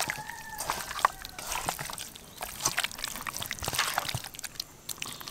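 Hands squishing and kneading raw chicken leg pieces coated in spice paste and oil in an aluminium bowl: irregular wet squelches and small slaps.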